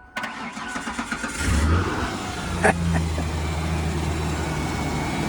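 Ford Explorer Sport's V6 engine cranked on the starter, powered from a jump box, catching after about a second and a half and settling into a steady idle, with one sharp click a little later. It is being started to test it after new sensors were fitted to cure poor acceleration once warm.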